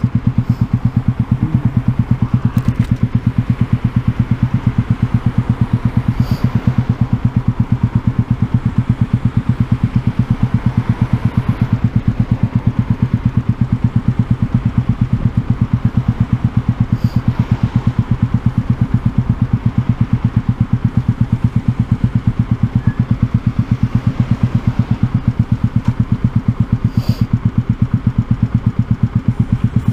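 Yamaha YZF-R125's single-cylinder four-stroke engine idling steadily with an even, rapid beat.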